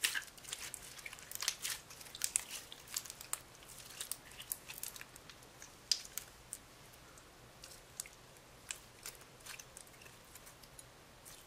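Clear slime with small blue beads, squeezed, stretched and folded by hand, giving a run of sharp wet crackles and pops as the air pockets in it burst. The crackling is densest in the first half and thins out toward the end.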